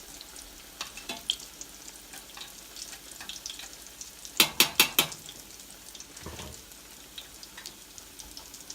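Salmon patties frying in hot grease: a steady sizzle with scattered small crackles. About halfway through, four sharp clicks or pops come in quick succession, louder than the sizzle.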